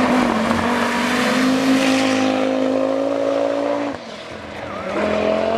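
Audi Quattro rally car's turbocharged five-cylinder engine at full throttle passing on gravel, its pitch climbing steadily. About four seconds in the engine note drops off sharply, then climbs again a second later, over a hiss of gravel under the tyres.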